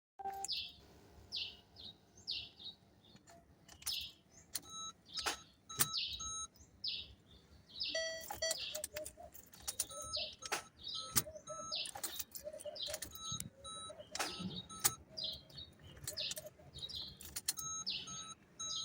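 Small birds chirping, a string of short falling chirps, with short high tones repeating and a few sharp clicks in between.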